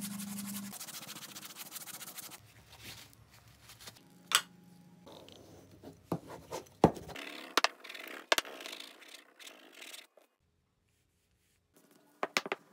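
A brush scrubbing a white paste onto a strip of leather: dense scratching for the first two seconds or so, then lighter strokes with a few sharp ticks. There is a short pause before a couple of final ticks.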